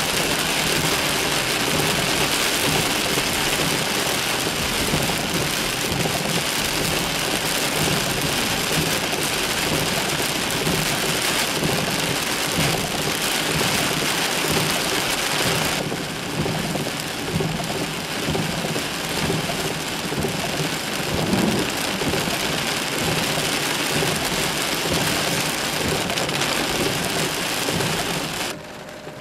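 Heavy rain pouring down steadily. A few seconds before the end the sound drops off sharply and becomes much quieter.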